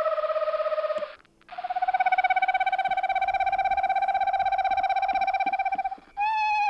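Recorded bird call played from a small handheld electronic caller to draw songbirds down from the canopy. It is a long, even, rapidly pulsing trill, broken by a short gap about a second in, then a short call that falls in pitch near the end.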